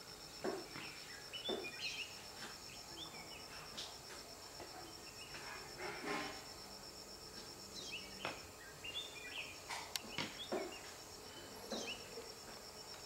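An insect trills steadily in a high, evenly pulsed tone, breaking off about two-thirds of the way through and starting again near the end. Scattered short rustles, ticks and a few faint chirps sound over it.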